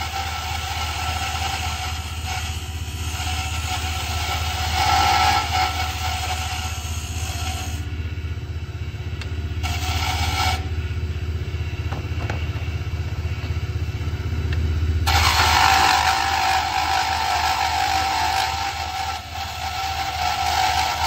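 Small benchtop wood lathe running with a steady low motor hum while a hand-held turning tool cuts the spinning pen blank with a scraping hiss. The cutting stops briefly about eight seconds in and again for about four seconds from eleven seconds, leaving only the motor hum.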